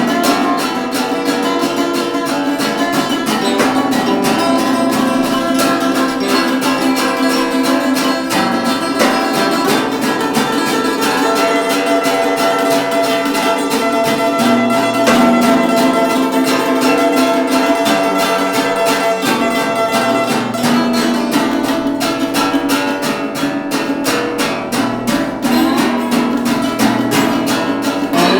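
Small acoustic band playing a blues instrumental: strummed acoustic guitar and plucked strings over an acoustic bass, with a held melody line above the chords.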